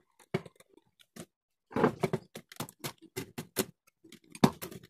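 Light bulb being fitted into its lamp holder: a run of short plastic and glass clicks and knocks, quickest in the middle, with one louder knock near the end.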